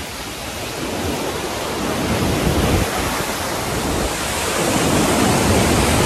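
Niagara Falls pouring down close by: a loud, dense, steady rush of falling water and spray, growing gradually louder, with gusts of the falls' wind buffeting the microphone.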